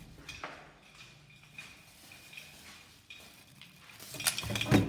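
Household items being handled: a few scattered light clicks and knocks, then a louder clatter about four seconds in.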